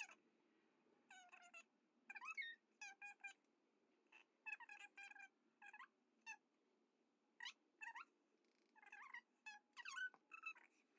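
Faint, short chirping animal calls, coming in quick clusters every second or so, over a low steady hum.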